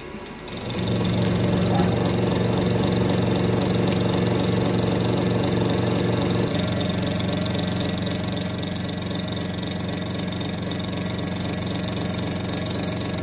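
Large gear-head metal lathe running at speed, turning down the outer diameter of a thick steel hydraulic cylinder head, with the tool cutting steel. About six and a half seconds in, the low hum drops and a higher hiss comes up.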